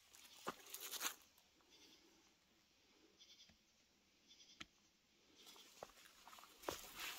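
Faint, irregular footsteps of a hiker on a forest trail, with soft crunches underfoot that come closer together toward the end.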